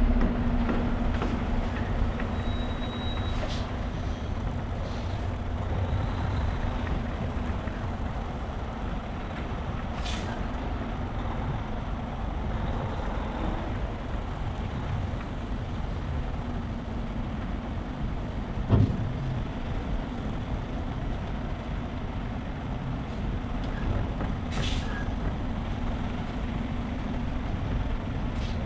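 Semi-truck running with a steady engine and road noise, broken by a few brief sharp sounds and one thump about nineteen seconds in.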